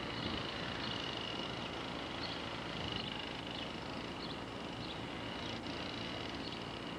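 Steady outdoor background hiss on an old camcorder recording, with a thin constant high tone and faint short high chirps about once a second.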